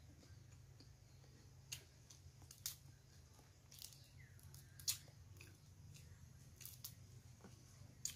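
Cooked blue crab shell being cracked and picked apart by hand while eating: quiet, scattered sharp cracks and clicks, about eight of them, over a faint steady low hum.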